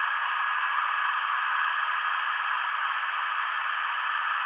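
Homemade CNC machine's spindle rotary tool running steadily while its bit routes a sheet of black plastic, heard as an even, unchanging hiss.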